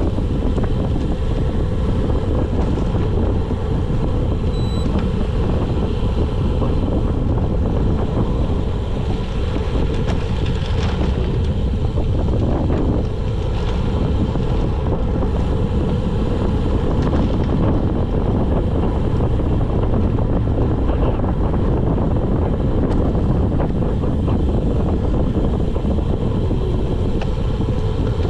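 Wind rushing over the microphone of a handlebar-mounted camera on a road bike descending at speed: a steady, loud rush that holds without a break.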